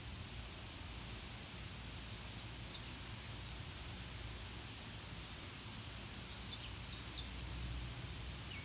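Steady outdoor background noise with a low rumble, over which small birds give a few faint, short chirps: a couple about a third of the way in, a quick run of several more later on, and another just at the end.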